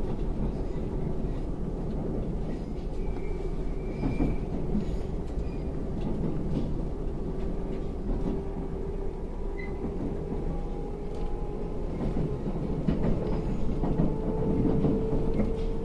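Running noise of an electric limited express train heard from inside the carriage: a steady rumble of wheels on the rails with scattered rail-joint clicks, and a whine that slowly rises in pitch.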